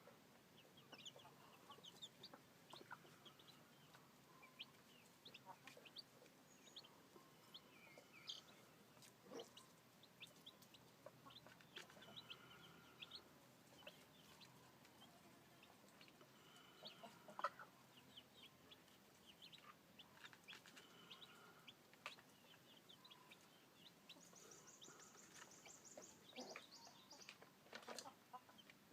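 Faint, scattered peeping of newly hatched chicks, many short high chirps throughout, with some soft clucking among them.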